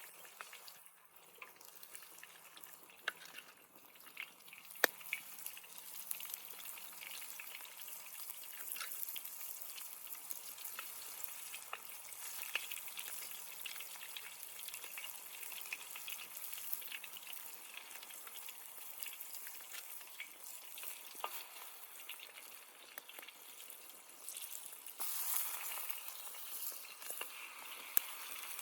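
Food frying in hot oil in a pan: a steady sizzle with scattered sharp crackles and pops, building a few seconds in and louder again near the end.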